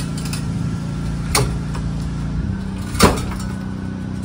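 A floor jack being lowered, letting a pickup truck settle onto a steel jack stand: two sharp clicks, the second louder, about a second and a half apart, over a steady low hum.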